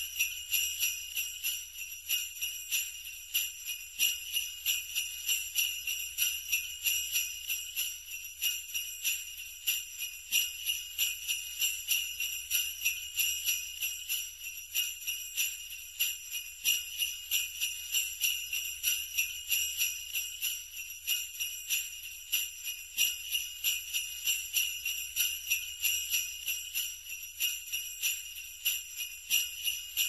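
Sleigh bells shaken continuously in a quick, even rhythm, a bright jingling ring throughout.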